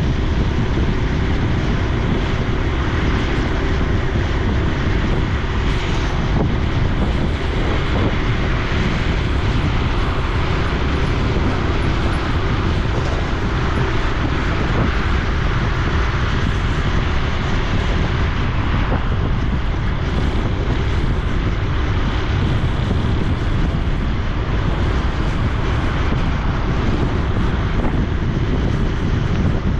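Honda Super Cub C125's 125 cc single-cylinder four-stroke engine and exhaust running steadily on the move, mixed with wind noise on the microphone.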